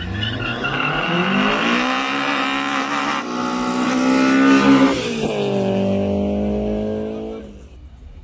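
Race car engines at full throttle in a street drag race, climbing in pitch with a brief break for a gear change about three seconds in. About five seconds in the pitch falls away as the cars go past, and the sound fades near the end.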